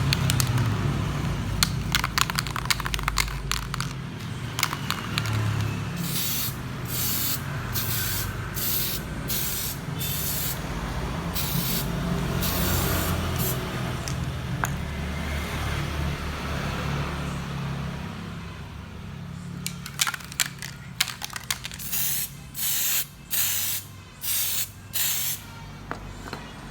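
Aerosol spray can of dashboard paint sprayed in short repeated bursts of hiss, a quick run of them, a pause, then another run near the end, over a steady low background rumble.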